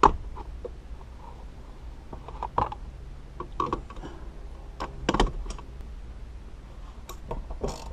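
Hand tools working on a car seat's plastic bolt covers and mounting bolts: irregular clicks and clunks about a second apart, busier near the end.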